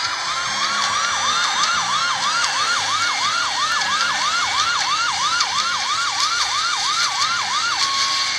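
Spanish police sirens: a fast yelp sweeping up and down about three times a second, over a slower wailing siren. Near the end the yelp stops and a short steady tone holds.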